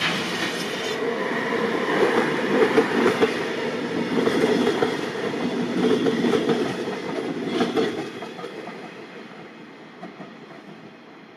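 A train passing on the line, its wheels clattering over the track. The sound dies away over the last few seconds.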